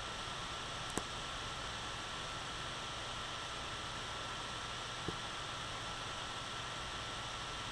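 Steady hiss of the camera recording with a faint steady high whine running through it. Two faint sharp knocks, about a second in and about five seconds in, from tennis balls being struck on the court.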